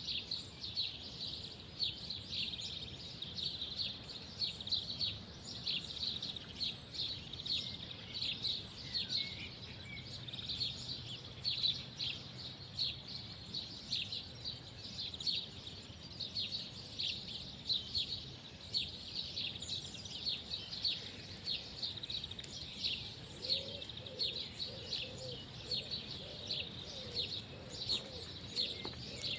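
Many small songbirds chirping and twittering continuously in a dense outdoor chorus. Near the end, low cooing calls repeat several times underneath.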